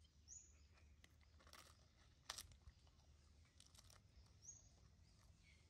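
Near silence, broken by faint paper crinkling and crackling as a puppy noses and mouths a paper wrapper, loudest a little over two seconds in. Two short high chirps come near the start and near the end.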